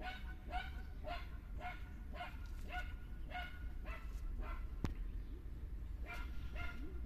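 A dog barking over and over, about two barks a second, pausing for about a second and a half near the middle before barking again. A single sharp click sounds just before the pause ends.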